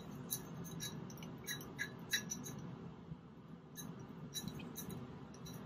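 Faint, irregular small clicks and light clinks from a glass beaker handled in gloved hands, busier in the first couple of seconds, over a steady low room hum.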